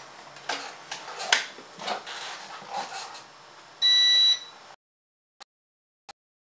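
Plastic clicks and rattles as a toy quadcopter and its parts are handled, then one high electronic beep lasting a little over half a second about four seconds in, as the drone's lights come on. After that it is near silence, broken by faint ticks about every 0.7 s.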